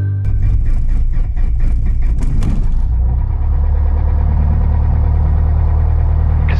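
Piper Warrior's four-cylinder Lycoming engine running, with irregular sharp clicks and pops over the first three seconds, then a steady low idle.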